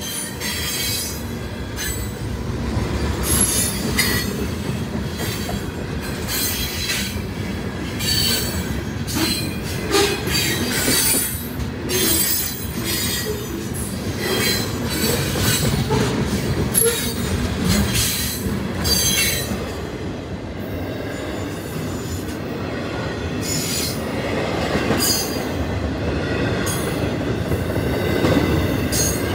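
CSX freight train cars rolling past close by: a steady loud rumble of steel wheels on rail, broken by frequent irregular clanks and high-pitched wheel squeals.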